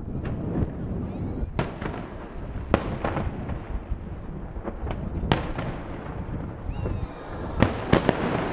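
Aerial fireworks shells bursting: a continuous low rumble of booms with sharp cracks every second or two, and three cracks in quick succession near the end.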